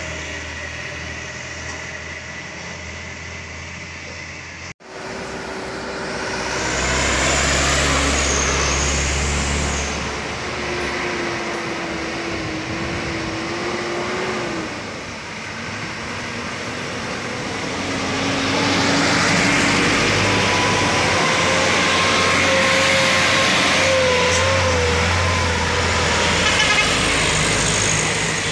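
Heavy trucks' diesel engines laboring up a steep grade in low gear. The engine noise swells loudly twice as trucks pass close, with a wavering whine on top at times. The sound cuts out for an instant about five seconds in.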